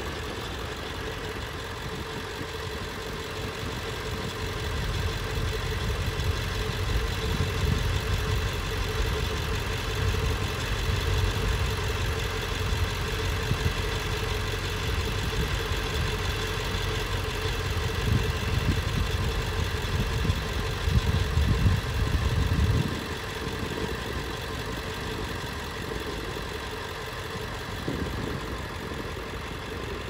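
Vehicle driving along: a steady engine and road hum with a heavy low rumble that eases off about 23 seconds in.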